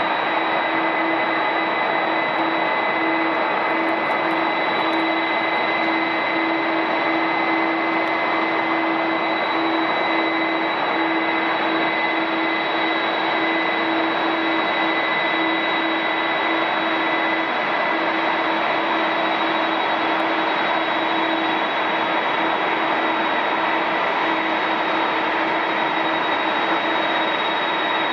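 Jet airliner engines running at taxi idle: a steady turbine whine with a high-pitched tone held over a constant roar.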